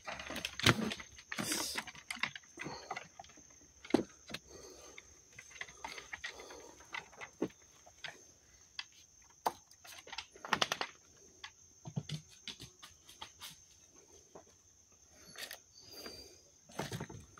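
Irregular knocks, scuffs and rustling of a person moving about with a wooden walking stick, with handling noise on the microphone, over a faint steady high whine.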